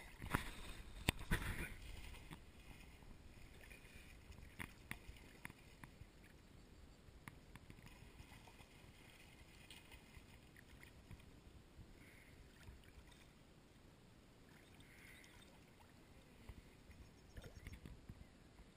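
River water lapping and splashing right at a camera held at the surface, with a brief run of louder splashes in the first two seconds, then quiet rippling with the odd small splash.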